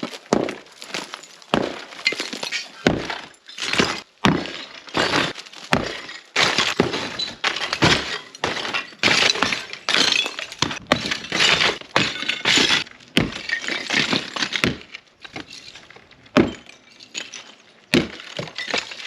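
A ruined building's wall being knocked down by hand: a run of blows and crashes, with rubble breaking and clattering as it falls, several impacts a second.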